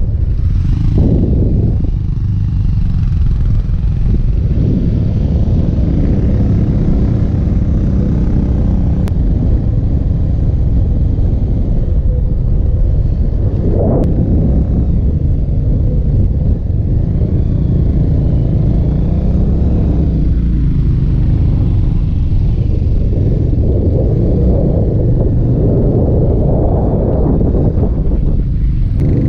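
A motorcycle engine running steadily as the bike rides along, heard from a camera mounted on the motorcycle itself, the sound heavy and low.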